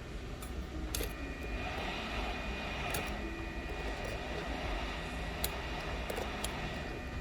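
Steady whir of a small electric blower fan with a faint high whine, and a few light clicks of tools against the phone about 1, 3, 5.5 and 6.5 seconds in.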